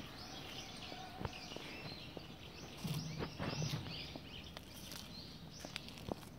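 Outdoor ambience: small birds chirping over and over in the background, with scattered soft ticks of footsteps on the paved, leaf-covered path and a brief low hum about three seconds in.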